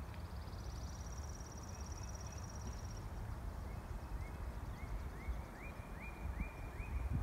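Birdsong outdoors: a fast, high trill for the first few seconds, then a string of short rising chirps repeated several times a second, over a steady low rumble.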